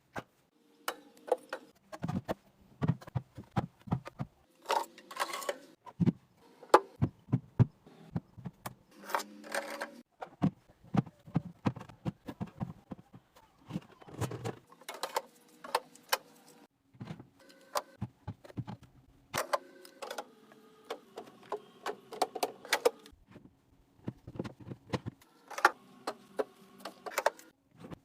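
Containers and bottles being set down and arranged in a refrigerator: an irregular, busy run of clicks, knocks and short ringing clinks.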